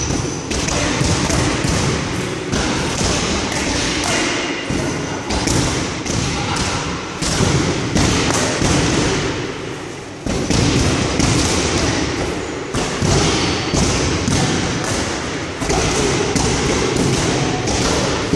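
Boxing gloves striking focus mitts in quick, irregular combinations, a run of sharp thuds several a second, with a brief lull about ten seconds in.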